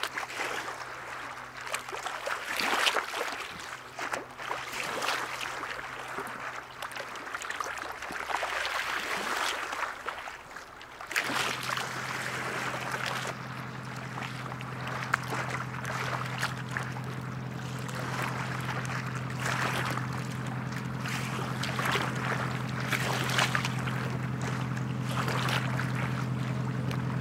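Sailing yacht's engine running steadily as the boat motors in with its sails down. It comes in suddenly about eleven seconds in and slowly grows louder as the boat approaches. Before it, there is gusty wind noise.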